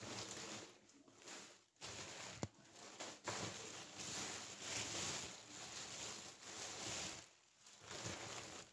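Thin plastic shopping bag rustling and crinkling as it is handled, in uneven stretches with short pauses.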